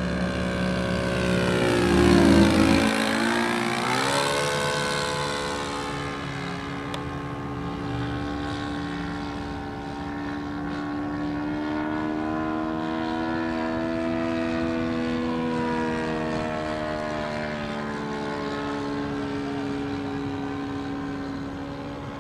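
Radio-controlled Gee Bee racer model airplane's motor and propeller on a pass. It grows loud and its pitch drops sharply as it goes by, about two seconds in, then settles into a steadier drone as it flies on.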